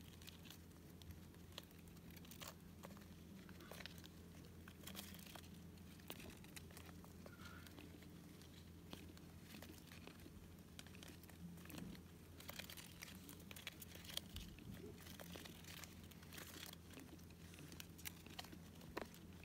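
Near silence: a pet hamster moving about inside a plastic exercise ball, heard as faint, irregular clicks and crinkles over a steady low hum.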